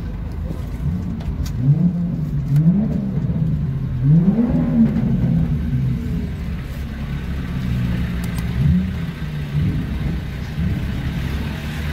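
Off-road 4x4's engine, heard from inside the cab, revving up and dropping back again several times as it is driven slowly over a rough dirt track.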